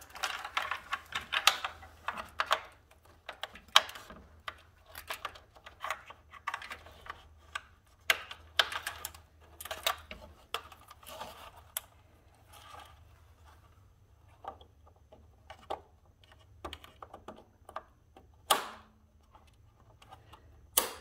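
Irregular plastic clicks, taps and rustling from a switch wire harness being handled and fed through a motorcycle's plastic inner fairing. The clicking is busiest at the start and again about eight to twelve seconds in, with two sharper clicks near the end.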